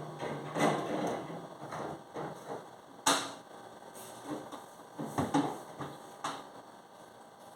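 Irregular knocks, clatters and rustles of food containers and packages being picked up and set down, with one sharp knock about three seconds in.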